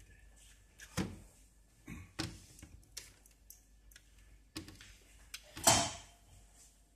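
Scattered clicks and knocks of hands handling an electronics trainer board and its banana-plug patch leads, about five in all, the loudest one about five and a half seconds in.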